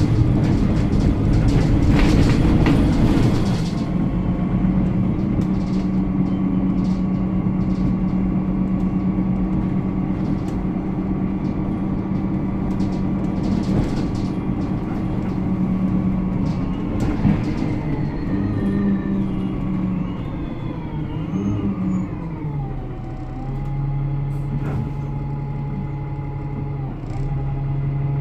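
Interior sound of an ADL Enviro 300 single-deck bus under way: a loud rush of noise for the first few seconds, then a steady drivetrain whine that falls in pitch about two thirds through as the bus slows and settles lower. Thin squealing tones glide over it around the same time.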